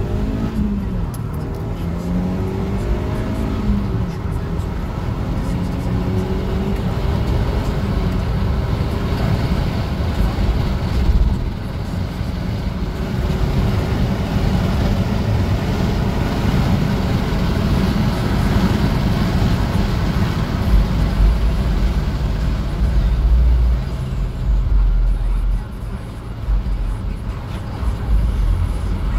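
Audi 2.0 TFSI turbocharged four-cylinder engine accelerating hard through the gears, revs rising and dropping back at each shift, with road and wind noise inside the cabin. It is being road-tested to check that it pulls under boost after a worn camshaft lobe and high-pressure fuel pump follower were replaced.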